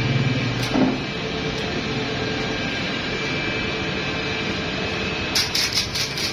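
Steady drone of PVC conduit pipe production machinery running, with a couple of steady tones through it. About five seconds in comes a quick cluster of sharp knocks and rattles.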